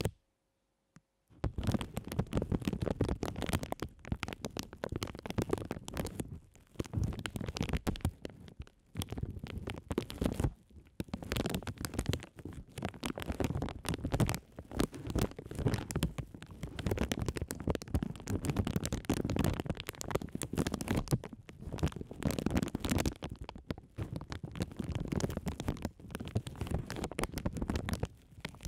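Clear plastic bags crinkled and rubbed directly against the microphones: a dense, close-up crackling rustle with a low rumble from the handling. It starts after about a second of silence and keeps going with a few short pauses.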